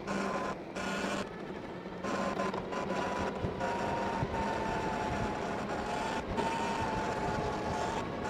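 Juiced electric bike under way on a dirt road: a steady motor whine that drifts slowly lower from about two seconds in, over wind and tyre noise.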